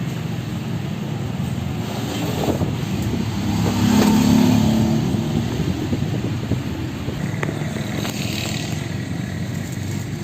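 A motor vehicle's engine running and passing by, swelling to its loudest about four seconds in and then fading back.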